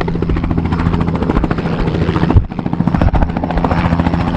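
Helicopter flying close by: the fast, even chop of the rotor blades over the steady drone of its engine, dipping briefly about halfway through.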